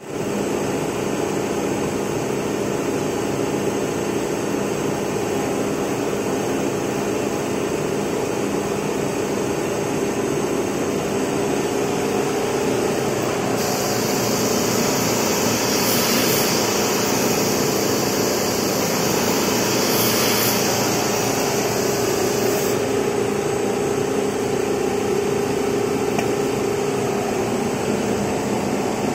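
IECHO TK3S digital cutter with its router module running, a steady mechanical hum. A high hiss joins about fourteen seconds in and stops about nine seconds later.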